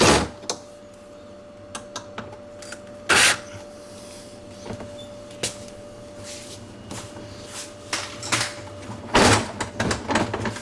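Loosening the screws that hold the outer door onto a Maytag bottom-freezer drawer: scattered small clicks and three louder short clunks of the door and drawer parts being handled, over a faint steady hum.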